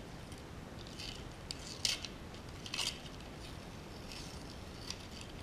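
Brown paper masking being peeled off a laser-cut acrylic part: soft paper rustling with a few sharp crackles, the loudest about two and three seconds in.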